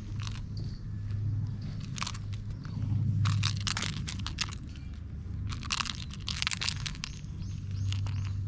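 Crunching and rustling as a cat bites and claws at a fluffy teaser toy, in irregular clusters of short crackles. The loudest come about three to four seconds in and again around six seconds in.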